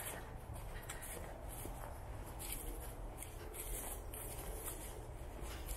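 Footsteps of a person walking along a hiking trail, irregular scuffing steps about every half second, over a low steady rumble.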